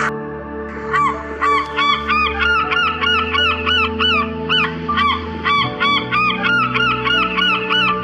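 Background music of held chords with a quick, evenly repeated series of short, arching high-pitched honk-like calls, about three a second, starting about a second in.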